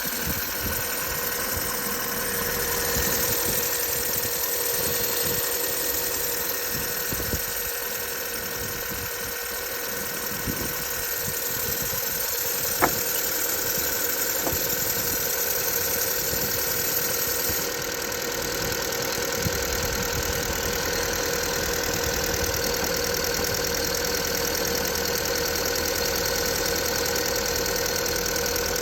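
VW Polo engine idling steadily with a faint whistle from the alternator belt, a squeal that is loudest in hard frost. A single sharp click about 13 seconds in.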